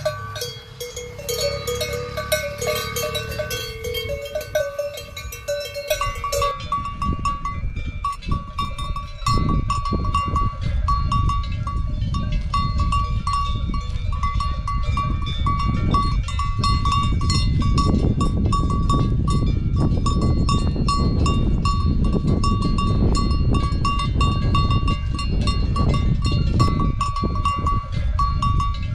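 Metal cowbells on grazing cows' collars clanking irregularly, several bells of different pitch. About six seconds in this gives way to a single higher bell clanging over and over, with a low rumbling noise underneath.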